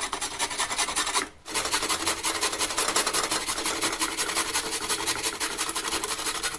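Raw turmeric root being grated by hand on a grater: quick, even rasping strokes, with a short pause a little over a second in.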